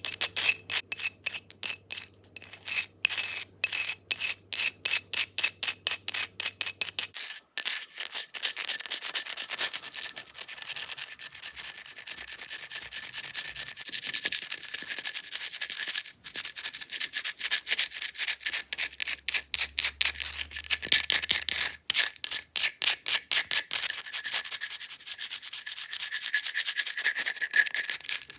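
Fake fingernails scratching fast across an object's surface in quick, separate strokes. About seven seconds in, the scratching turns denser and nearly continuous.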